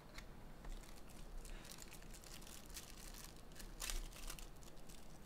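Trading-card hobby box being opened and its plastic-wrapped card packs handled: faint crinkling and rustling of the wrappers, loudest about four seconds in.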